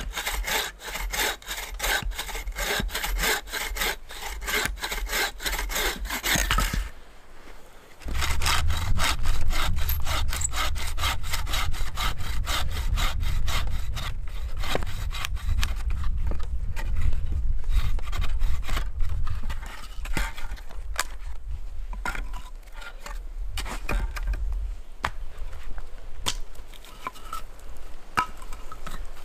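Wooden frame bow saw cutting through small logs in quick, regular back-and-forth strokes. The sawing breaks off briefly about seven seconds in, then resumes, and the strokes thin out toward the end.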